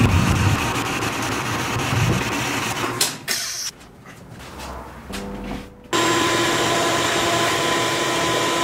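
Woodworking power tools running. One runs noisily for about three seconds; after a lull, a motor starts suddenly and holds a steady whine, then cuts off abruptly at the end.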